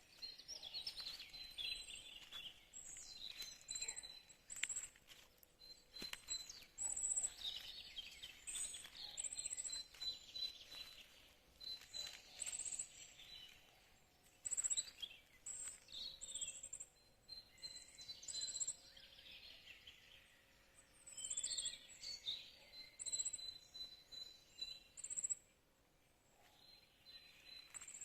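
Several songbirds singing and calling, with many short chirps and trills and repeated short high notes. A thin steady high tone runs underneath.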